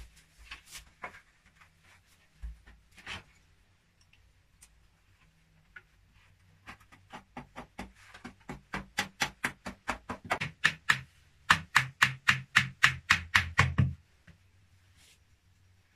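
A bladed hand tool chopping rapidly into a packed-earth wall, a fast even run of sharp strikes about four a second that grows louder partway through and stops suddenly near the end. A few scattered knocks come first.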